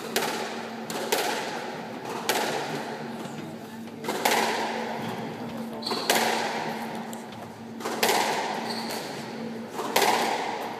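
Squash ball being struck back and forth in a rally: sharp smacks of racquet and wall about every one to two seconds, each echoing round the court. Two short, high shoe squeaks on the wooden floor come midway and later.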